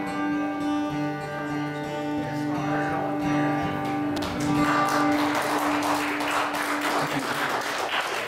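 Acoustic guitars ringing out on the song's last chord, then audience applause starting about halfway through as the chord fades.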